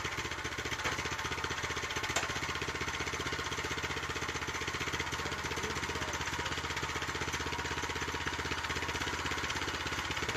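Small gasoline engine of a portable bandsaw sawmill running steadily, with one sharp click about two seconds in.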